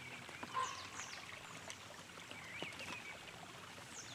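Woodland ambience: small birds calling with short, falling chirps, the loudest about half a second in, over the faint steady trickle of a shallow stony stream.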